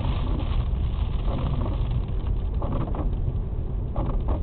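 Steady low rumble of a car driving, heard from inside the cabin, with a few brief scratchy sounds in between.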